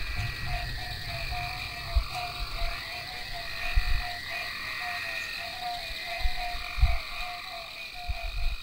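Night-time animal chorus: a short mid-pitched call repeats about three times a second over a steady high-pitched drone, with a few low thumps.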